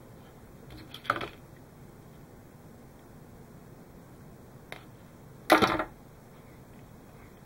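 Short clacks of a hand wire-stripping tool being used and handled on a workbench while thin wires are worked: a sharp click about a second in, and a louder, rattling clack about five and a half seconds in.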